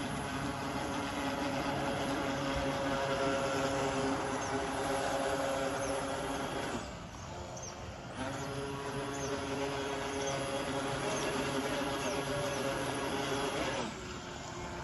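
Megatech Caribbean Cruiser RC boat's motor running at speed with a steady whine, dropping away briefly about seven seconds in and again near the end.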